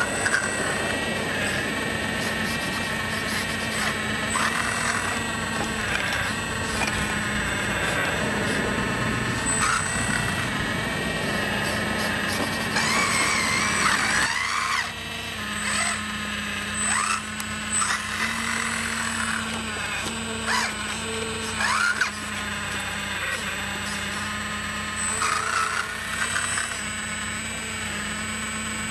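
Scale RC hydraulic excavator working: the electric hydraulic pump whines steadily, its pitch sliding up and down as the boom and bucket valves are worked against the load of dirt.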